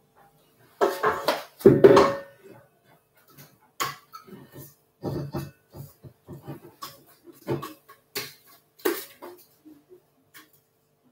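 Spatula scraping and knocking against a stainless steel mixing bowl as the last cake batter is scraped out into the tins, in irregular strokes, loudest about one to two seconds in.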